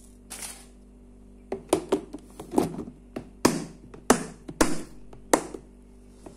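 A quick series of sharp plastic and metal knocks and clacks, about eight in four seconds, as the latching lid of a plastic rice storage box is closed and a rice cooker's inner pot is handled.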